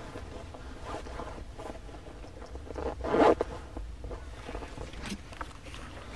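A zipper being pulled: one loud, quick pull about three seconds in, with softer shorter rasps and handling noises around it.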